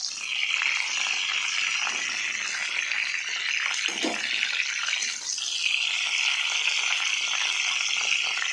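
Oil sizzling steadily as halved pointed gourds (potol) fry in a metal wok. A metal spatula scrapes and knocks against the pan a few times as the gourds are pushed aside, fried on both sides.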